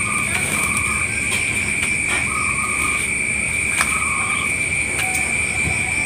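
Collared dove (local puter dove) cooing in short, repeated level notes over a continuous high-pitched insect drone, which is the loudest thing throughout.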